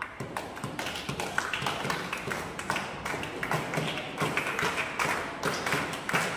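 Footsteps of performers moving across a hard stage floor: a run of irregular taps and light thumps.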